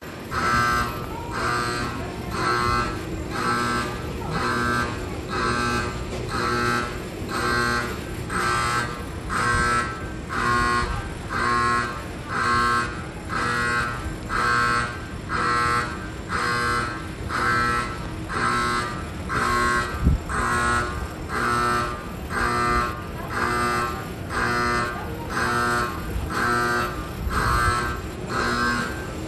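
Railway emergency alarm buzzing at a station in an even, repeating on-off pattern of several stacked tones, a sign that an emergency stop has been triggered. A single sharp knock comes about twenty seconds in.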